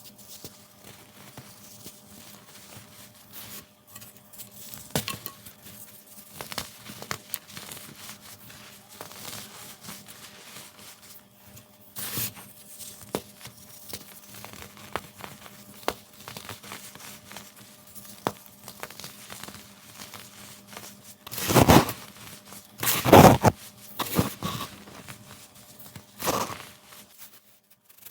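Crunchy dried baking soda crushed and crumbled by hand: scattered small crackles and crunches, with two louder, longer crunches about three quarters of the way through.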